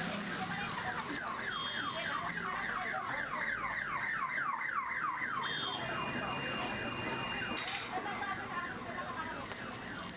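A rapidly repeating falling chirp, about four a second, loudest for the first six seconds or so, over a faint sizzle of egg and paratha frying on a flat iron griddle.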